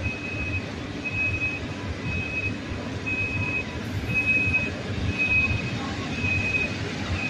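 PKP Intercity passenger train rolling slowly through a station platform with a low rumble, while a high electronic beep of about half a second repeats roughly once a second.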